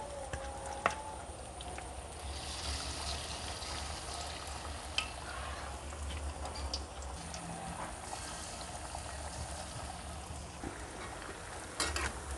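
Batter fritters deep-frying in hot oil in a wok, with steady bubbling and crackling. A few sharp clicks, mostly near the end, come from the metal spatula touching the wok.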